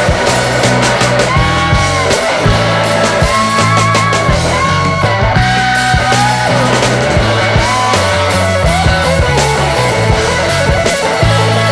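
Background rock music with electric guitar, a steady drum beat and a bass line.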